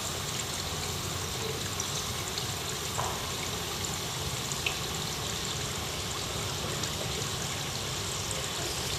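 Two pyrotechnic fountains spraying sparks with a steady rushing hiss, with a couple of faint clicks.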